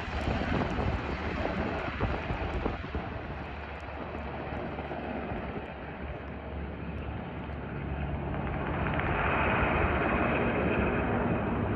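Sikorsky S-70 Black Hawk twin-turbine helicopter flying away, a steady rush of rotor and engine noise that swells louder about eight seconds in.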